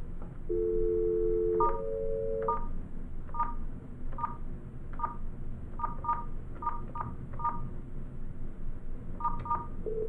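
Cisco SPA500-series IP desk phone on speakerphone. A two-tone dial tone sounds and changes pitch at the first key press. Twelve keypad presses follow, each with a short DTMF beep at an uneven pace, as 9, 1 and a ten-digit number are dialled. Ringback tone begins right at the end.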